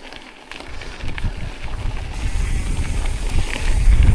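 Wind rumbling on the microphone along with the tyre and trail noise of a mountain bike being ridden. It grows louder about a second in, with a few light knocks.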